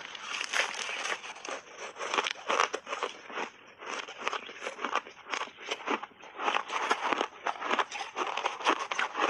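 Refrozen shaved ice being bitten and chewed, close to a clip-on microphone: a dense, irregular run of crisp crunches, several a second.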